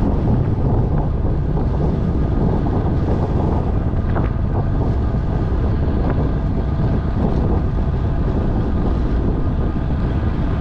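Steady rush of wind buffeting the microphone of a camera on a road bike rolling at about 25 to 30 km/h.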